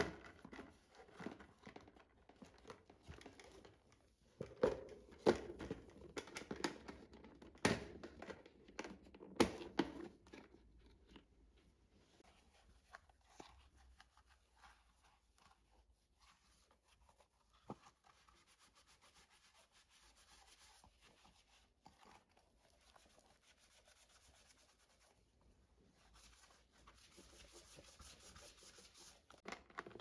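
Shoes and a clear plastic shoe box being handled: a run of light knocks and plastic clacks in the first ten seconds or so, then quieter rustling and crinkling as things are moved and packed.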